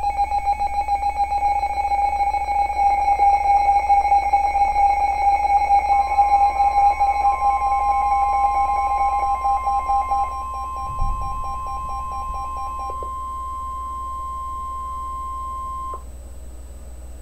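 NOAA Weather Radio alert tones. A warbling electronic tone with several higher tones plays for about ten seconds. From about six seconds in, a steady single tone just above 1 kHz joins it, is held for about ten seconds and cuts off sharply. That steady tone is the 1050 Hz warning alarm tone that comes before a warning message.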